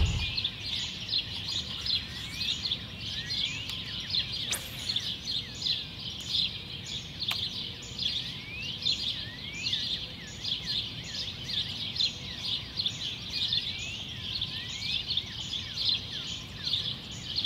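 Dawn chorus: many birds chirping, with short calls repeating over and over and scattered rising and falling whistles, over a low steady background.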